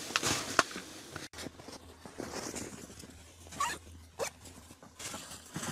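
Nylon fabric and frame of a Clam flip-over ice shelter being handled during packing up: scattered rustles and a few short scrapes and knocks over a low steady hum. Sharper clicks of the camera being handled come first, before a sudden change about a second in.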